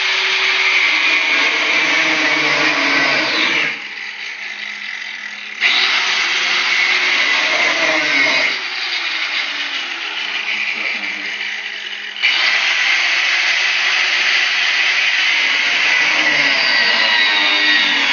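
Handheld power tool cutting the pinch-welded seam lip out of a steel frame rail, running with a high, shrill whine whose pitch shifts as it bites. It eases off twice, for a couple of seconds at a time, then bears in again.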